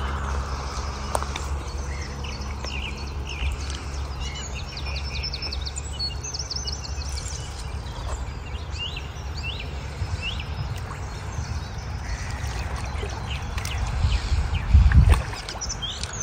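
Outdoor lakeside ambience: a steady low rumble with small birds chirping and trilling over it. Near the end there is a short, louder burst of low noise.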